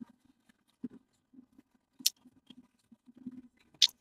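Faint mouth noises close to the microphone while sucking on a peppermint: soft low hums and a couple of sharp clicks, one about two seconds in and one near the end.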